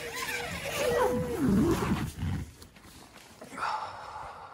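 An animal's call: a long wavering cry that rises and falls in pitch for about two seconds, then a shorter cry near the end.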